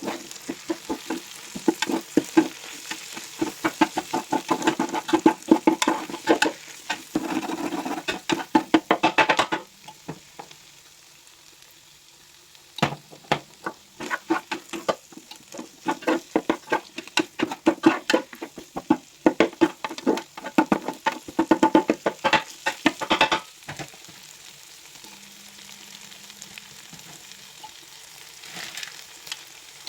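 Fried rice being stirred and scraped with a spatula in a frying pan: two long runs of quick strokes with a short pause between, over sizzling. The stirring stops about three-quarters of the way through, leaving a quieter sizzle.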